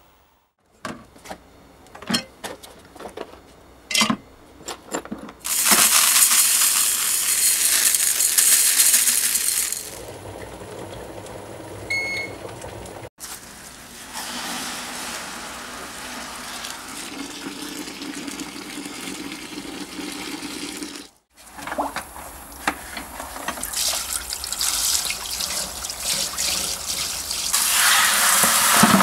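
Small metal blowtorch parts clinking several times, then water from a garden hose splashing into a plastic bucket of parts. The splashing comes in long stretches, loudest at first and again near the end, with short breaks between them.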